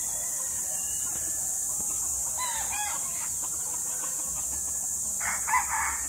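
Filipino native chickens: a few short, softer calls about halfway through, then a rooster crows loudly near the end, the crow running on past it.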